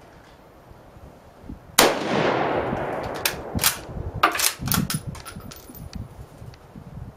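A 1941 Mosin-Nagant bolt-action rifle firing one 7.62x54R round about two seconds in, a loud shot with a long echoing tail. A quick run of sharp metallic clacks follows as the bolt is worked, with a brief high ring among them.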